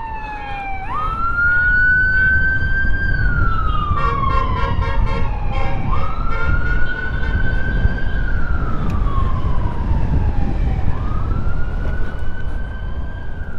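Emergency vehicle siren sounding a slow wail: it sweeps quickly up, then slides slowly down, about every five seconds, three times. A steady low rumble of wind and road noise runs underneath.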